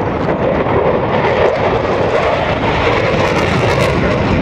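Block 50 F-16 fighter jet in flight, its General Electric F110-129 afterburning turbofan heard as loud, steady jet noise.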